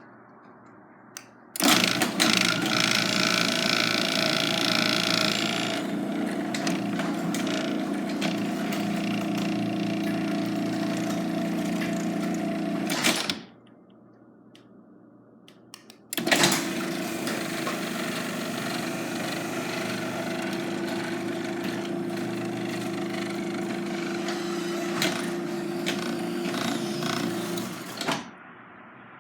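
Garage door opener motor running the door through a full travel twice, each run starting with a click and holding a steady hum for about eleven seconds, with a pause of about three seconds between them.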